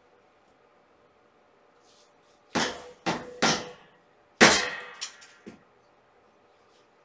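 Kittens play-fighting and bumping into their toys: a run of sharp knocks and clatters, each ringing briefly. Three come close together a little over two and a half seconds in, the loudest follows about a second later, then two fainter ones.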